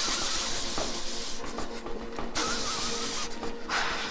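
CAROL stationary bike in an all-out sprint at full cadence: a loud rushing hiss that starts suddenly and keeps going, with a few brief dips.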